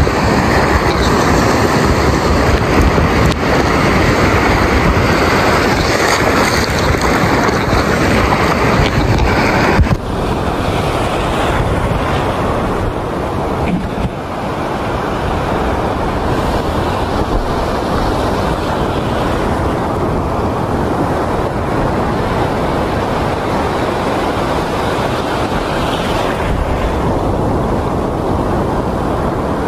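Steady loud rush of sea surf and wind on the microphone, with a sudden change in its sound about ten seconds in.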